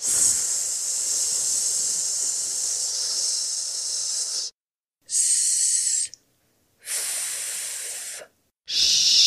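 A person holding voiceless fricatives (s, sh and f) as sustained hisses with short breaks between them. The first hiss lasts about four seconds and is followed by a short, high one and a quieter, more spread-out one. A louder, lower hiss begins near the end.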